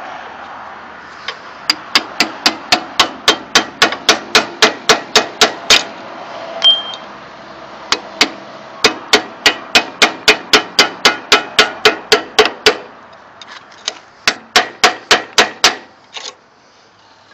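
Rapid metal-on-metal hammer blows on a long screwdriver set against a stuck tooth on a stump grinder's cutter wheel, driving the wedged tooth out of its pocket. The blows come about three to four a second, in three runs with short pauses between.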